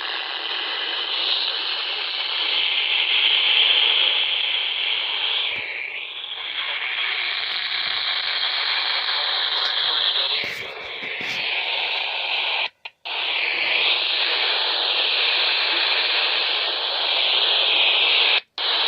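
Radio receiver static: a steady hiss with the narrow, tinny band of a radio, cutting out completely for an instant twice in the last third.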